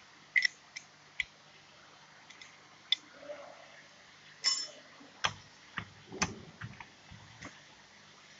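A dozen or so scattered light clicks and knocks over a faint steady low hum, with the sharpest clicks in the first half and a cluster of duller knocks in the second half.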